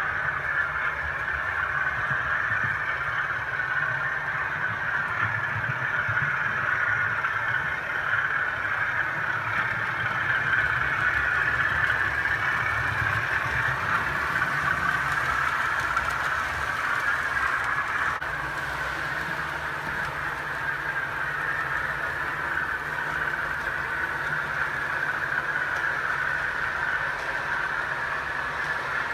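Model HST train running steadily around a model railway helix, a continuous whirr of its motor and wheels on the track over a low hum.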